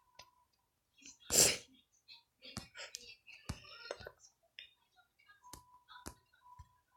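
A short breathy whisper about a second and a half in, then scattered sharp clicks and taps from drawing in a hurry.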